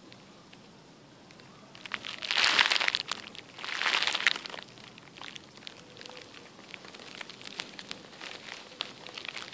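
Baby Netherland dwarf rabbit eating dandelion leaves: two bursts of leaf rustling and crunching about two and four seconds in, then fainter quick chewing clicks.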